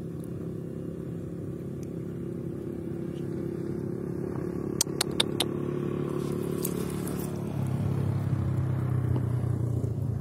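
A small engine running steadily, a droning hum that swells slightly near the end. About halfway through, four sharp clicks follow one another quickly.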